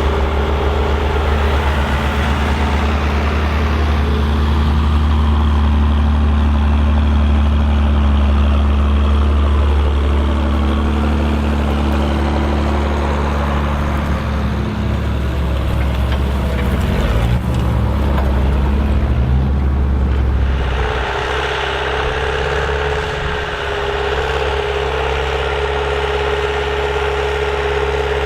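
Old farm tractor's diesel engine working steadily under load while pulling a plough. The engine note wavers briefly and then changes abruptly about two-thirds of the way through, settling into a different steady note.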